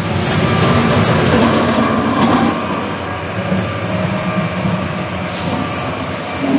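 A snowplow truck's engine running close by, an engine hum over a steady rush of noise.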